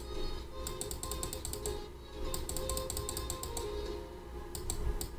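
Computer keyboard keys pressed in several quick runs of clicks, over quiet background music.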